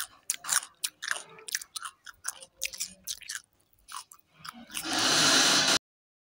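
Close-miked chewing of rice and mutton curry, a quick run of wet mouth clicks and crunches for about four seconds. Near the end a loud rushing noise lasts about a second, then the sound cuts off suddenly.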